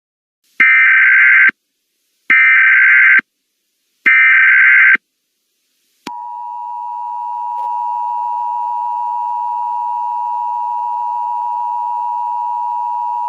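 Emergency Alert System alert tones: three short bursts of buzzing SAME header data about a second apart, then, about six seconds in, the steady two-tone attention signal (853 and 960 Hz together), which swells in level over the next second or two and holds steady. It is the signal that an alert message is about to be read.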